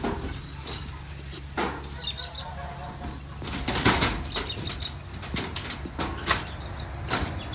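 Scattered rustles and knocks with a few faint short bird chirps, over a low steady hum.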